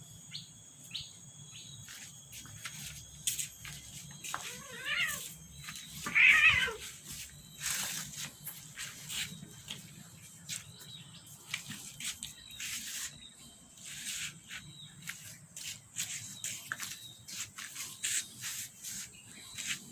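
A cat meows twice, about five and six and a half seconds in, the second louder, amid many short clicks and taps.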